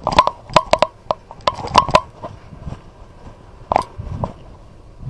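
Irregular sharp knocks and clatter from a firefighter moving on foot beside a fire engine, his kit and boots jostling the body-worn camera. The knocks are quick and close together at first, then come singly, with a duller thud about four seconds in.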